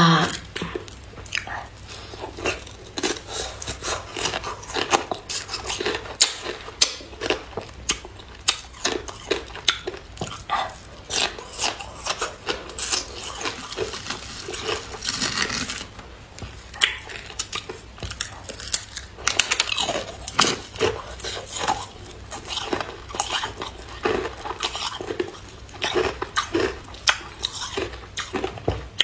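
Hard ice cracking and crunching: thin sheets of clear ice snapping and clinking as they are broken and handled in a bowl, in quick, irregular sharp cracks.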